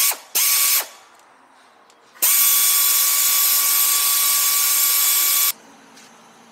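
Pneumatic air ratchet running out transmission pan bolts: two short bursts, then one long run of about three seconds, a steady high whine over the hiss of the air.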